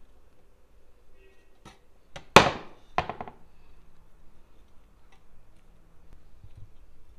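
Two knocks of a metal spoon against cookware while the pilaf topping is served, the first loud and sharp, the second weaker about half a second later.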